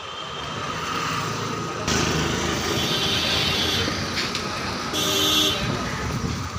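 Street traffic noise with passing vehicles, growing suddenly louder about two seconds in, and a vehicle horn sounding briefly about five seconds in.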